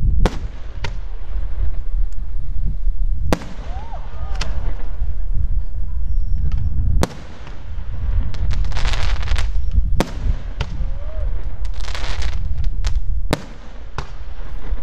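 Aerial firework shells bursting overhead: sharp bangs come every second or few, over a steady low rumble, with two spells of crackling partway through.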